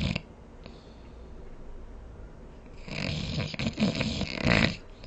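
A person snoring: a brief snore right at the start, then one long snore beginning about three seconds in and lasting nearly two seconds, loudest near its end.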